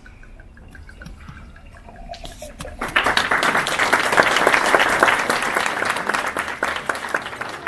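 A crowd of seated guests applauding: many hands clapping start suddenly about three seconds in, then slowly taper off.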